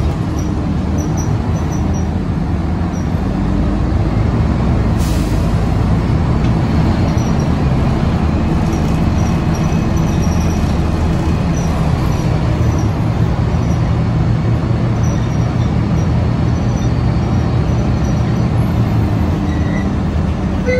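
Interior noise of a 2013 Karsan Avancity S Plus articulated city bus under way: steady engine drone with road and body noise, a noisy ride. A brief hiss about five seconds in.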